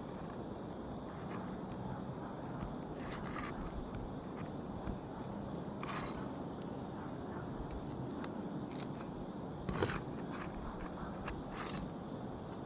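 Occasional scrapes and knocks from roof shingles being worked loose, over a steady outdoor hiss. The sharpest knock comes about ten seconds in.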